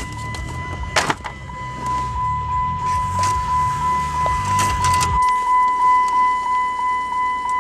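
Factory Chrysler radio/CD player taking a CD into its slot. The low sound from the car speakers cuts off about five seconds in as the unit switches over to the disc, with a click about a second in and a steady high-pitched whine throughout.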